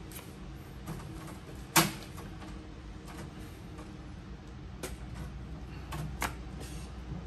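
Playing cards being handled: a handful of short sharp clicks and snaps at irregular spacing, the loudest just under two seconds in.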